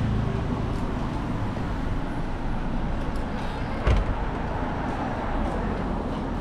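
Street traffic noise with a vehicle engine running steadily close by, and a single sharp thump about four seconds in.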